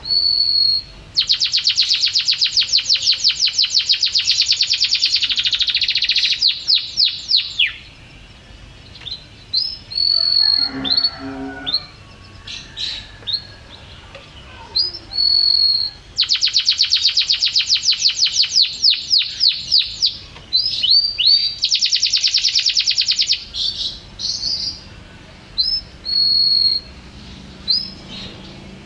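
Domestic canary in full song: long bouts of very rapid, high trills, one starting about a second in and two more past the halfway mark, with short clear whistled notes in between.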